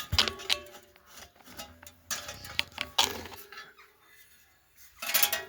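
Light metallic clinking and rattling: several clusters of sharp clinks, each with a brief ringing tone.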